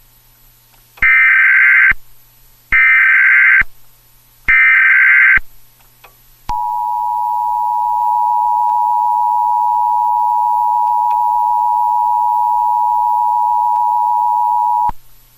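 Emergency Alert System header tones: three bursts of SAME data tones, each about a second long with a second's gap between them. Then comes the steady two-tone EAS attention signal, held for about eight seconds before it cuts off.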